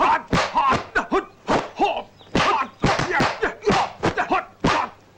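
Kung fu film fight sound effects: a rapid string of dubbed punch, kick and block impacts, about three or four hits a second, with a brief lull near the middle.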